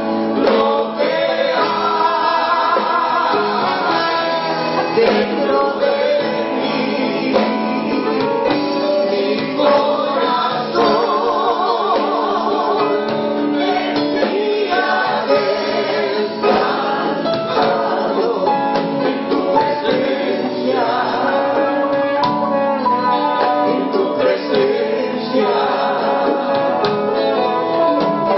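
Live gospel worship band performing: several voices singing together, with plucked strings and drums and congas.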